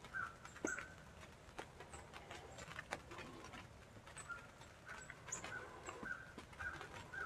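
Rain on a hunting blind: scattered, irregular taps of falling drops over a faint steady patter, with short high chirps repeating about twice a second in the second half.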